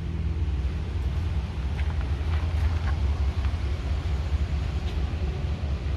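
A steady low rumble of outdoor background noise, with a few faint light ticks over it.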